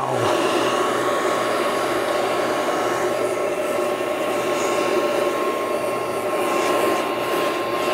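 A motor-driven air tool clearing sawdust off a freshly cut CNC sample piece: a steady rush of air with a thin high whine over it. It switches on right at the start and cuts off near the end.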